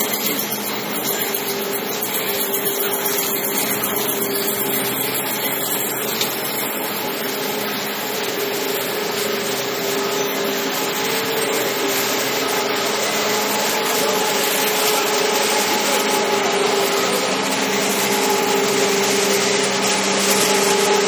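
Clay-preparation machinery in a brick plant running steadily, with belt conveyors carrying clay: a continuous loud mechanical drone with a steady hum that grows a little louder in the second half.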